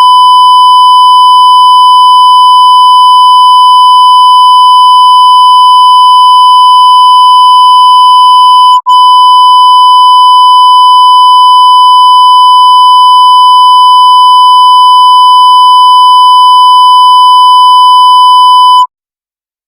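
Loud, continuous electronic alert tone of a mock emergency broadcast interruption: one steady, buzzy pitch with a split-second break about nine seconds in, cutting off suddenly near the end.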